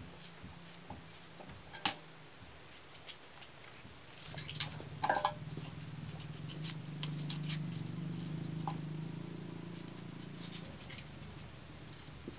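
Knife slicing raw potato by hand, with short sharp cuts and clicks as pieces come off over a steel bowl. A low steady drone comes in about four seconds in, swells and fades out about eleven seconds in.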